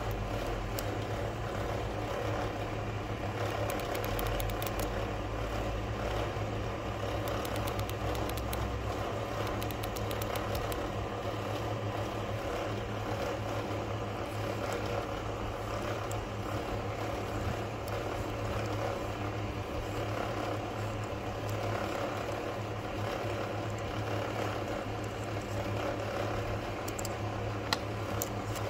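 A steady mechanical hum, with a few faint clicks of a small metal lighter cap being handled and twisted; the sharpest clicks come right at the end.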